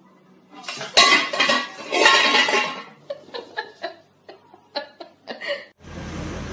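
Metal cooking-pot lid clattering loudly against the pot for about two seconds as a kitten on it tips and rattles it, followed by a run of about eight short, sharp sounds. Near the end a steady noise takes over.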